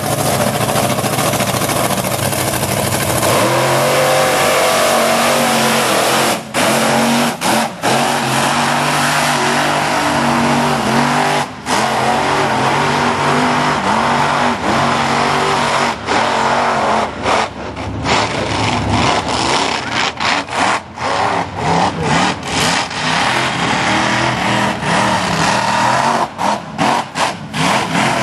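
Lifted mud truck's engine running loud and revving hard as it drives through a mud pit, the pitch rising and falling with the throttle. In the second half the sound dips briefly again and again.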